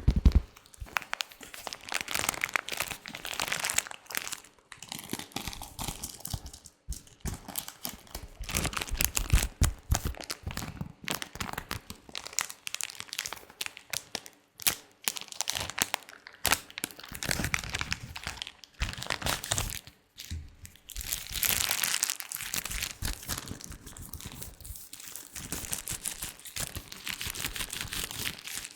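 Latex gloves handled and rubbed close to a sensitive microphone: a dense, irregular run of rustling and crackling, with a few brief lulls.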